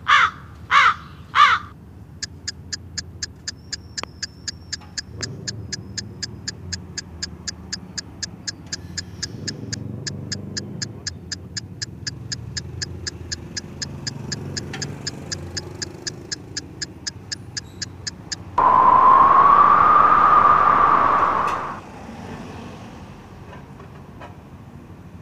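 A crow cawing a few times, then a fast, even ticking at about four ticks a second that runs for some sixteen seconds over a faint low rumble. About eighteen seconds in, a loud blare with one steady tone lasts about three seconds and cuts off.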